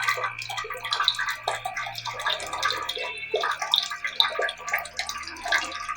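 Water running from a tap and splashing irregularly into a basin, with a faint steady high tone underneath.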